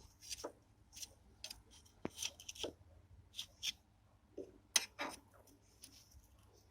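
Irregular light clicks, scrapes and rustles, about a dozen in a few seconds, the sharpest a little under five seconds in, as of small hard objects being handled.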